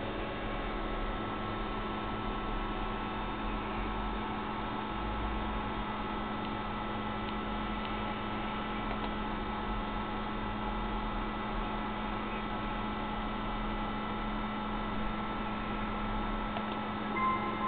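Steady electrical hum, with an unchanging low tone over a background hiss.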